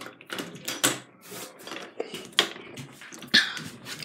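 Handling of a locked interior door and its knob: a run of irregular clicks, knocks and rubbing, with no steady rhythm.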